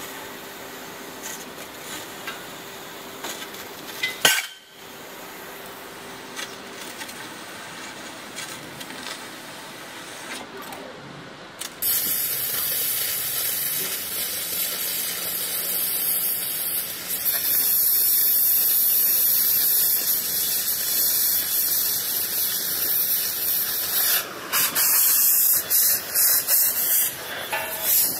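CNC laser tube cutter working on rectangular steel tubing: a low hiss with a steady hum and a sharp click about four seconds in. About twelve seconds in it gives way to the much louder, steady hiss of a handheld oxy-fuel cutting torch's oxygen jet cutting a steel beam, which breaks off briefly a few times near the end.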